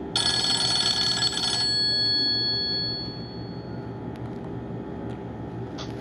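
A Nokia 6650 Fold ringtone played through a Nokia 130's small speaker: a bright, bell-like burst of several high tones that starts just after the beginning and lasts about a second and a half. A few of the tones ring on and fade out over the next two seconds. Near the end the next ringtone begins.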